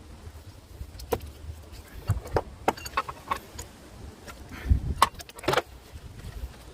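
Scattered metallic clicks and knocks of tools and parts being handled, about a dozen, loudest around five seconds in, over a low rumble.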